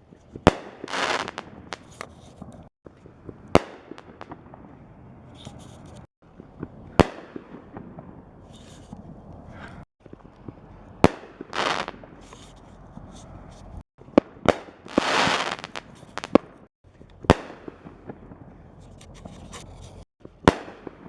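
Consumer reloadable mortar shells, cardboard-tubed ball shells, being fired one after another: about eight sharp bangs, a few seconds apart, from the launches and aerial breaks. Several bangs are followed by a second or so of hissing.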